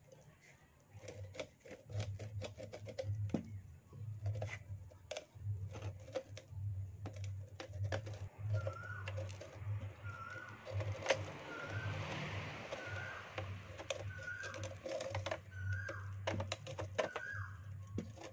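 Rusty metal hurricane lantern being handled and turned over, with light clinks, knocks and rattles of its loose metal parts and wire handle. A short chirp repeats about once a second in the second half.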